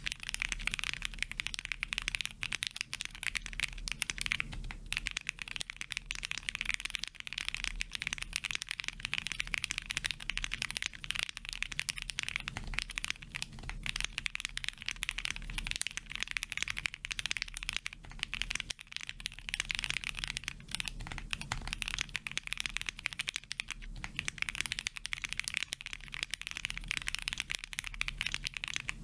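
Continuous typing on a Sun68 mechanical keyboard with lubed SP Star Meteor White switches, a polycarbonate plate, Polycaps keycaps and added foam: a steady stream of quick keystroke clacks with only brief pauses.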